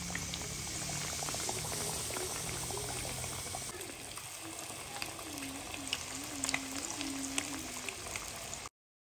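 Night chorus at the water's edge, frogs and insects: a dense crackling hiss full of sharp clicks, with a faint low wavering call under it. It cuts off suddenly near the end.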